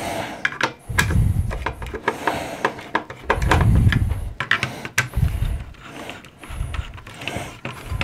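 A screwdriver loosening the retaining screws of a CPU cooler on a motherboard, giving a string of small clicks and scrapes. Heavy breathing on the microphone comes in low puffs, about four times.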